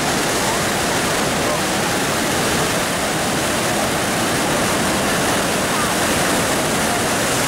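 Yangtze River rapids, high muddy water churning and rushing over rocks in a loud, steady, unbroken noise.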